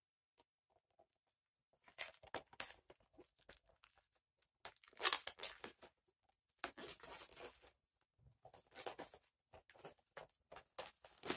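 Plastic shrink wrap being torn and peeled off a Blu-ray box set by hand, in irregular bursts of tearing and crinkling that start about two seconds in, loudest near the middle.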